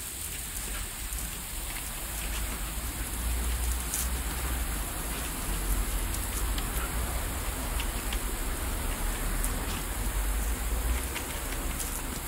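Garden hose water spraying up and splashing back down onto wet terrace tiles: a steady, rain-like hiss of falling water.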